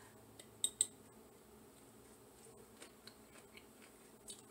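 Mostly quiet kitchen with two small sharp clicks about two-thirds of a second in and a few fainter ticks later: a fork clinking against a glass mason jar as a bite of marinated vegetables is picked out to taste.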